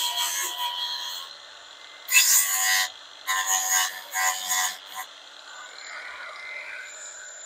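Bauer angle grinder with a 180-grit flap disc sanding, in four short passes of about a second each with brief pauses between.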